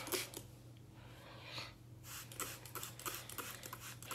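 Plastic trigger spray bottle misting hair: a few short squirts with clicks, and a longer hiss about one and a half seconds in.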